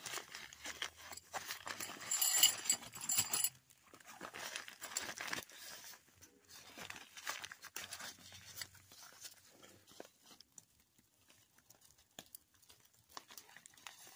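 Rustling, crinkling and crunching of gear being handled, with a dense burst of handling noise about one to three seconds in, then scattered small clicks and rustles.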